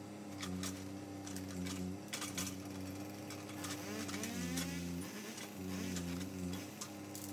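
An engine runs steadily, its pitch dropping and recovering a few times as it takes load, about four and six seconds in, with scattered sharp cracks over it.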